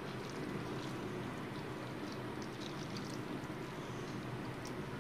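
Steady low rushing hum in the background, with a few faint light clicks as cooked pasta is scooped out of a nonstick pan with a spoon.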